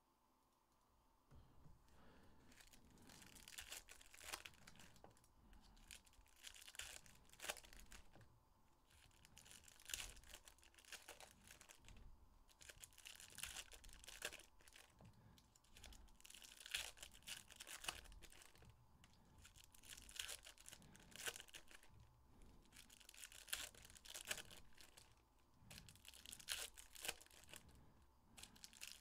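Upper Deck hockey card foil packs being torn open and their wrappers crinkling, in quiet repeated bursts of rustling.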